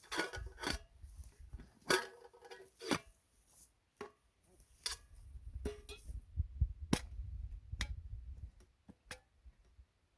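Irregular clicks, taps and knocks of gear being handled, some with a short ring, over a low rumble.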